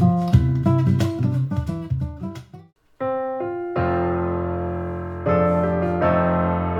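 Music played through hi-fi loudspeakers. A guitar piece fades out about two and a half seconds in, there is a moment of silence, then a piano begins with slow, sustained chords.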